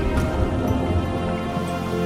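Background music of held, sustained chords, with a low note changing about a second and a half in.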